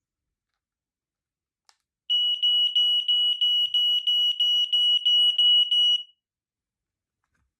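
Smoke alarm sounding during its test: a shrill, high-pitched tone pulsing about three times a second. It starts about two seconds in, runs for about four seconds and cuts off.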